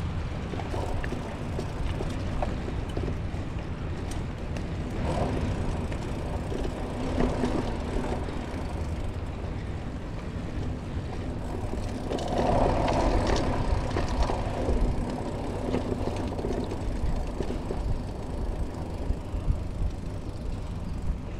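Mountain bike riding a dirt forest trail, heard from the rider's own camera: a steady low rumble of rolling tyres and riding noise, with louder stretches about five, seven and twelve to fourteen seconds in.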